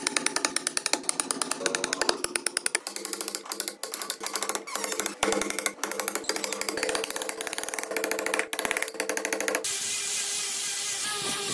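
A carving chisel being driven into a block of wood in a rapid run of sharp knocks, about five a second. About nine and a half seconds in the knocking stops and an angle grinder with a foam-backed sanding disc starts, a steady whirring hiss as it sands the wood.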